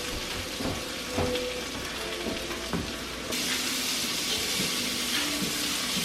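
Potatoes sizzling as they fry in a pan, with a few short knocks in the first few seconds; the sizzle gets louder a little over three seconds in.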